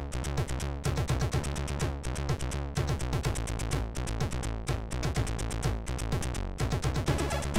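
Commodore 64 SID chip tune played by the 6581 sound chip: an electronic track with a steady beat of sharp drum hits over a repeating bass line.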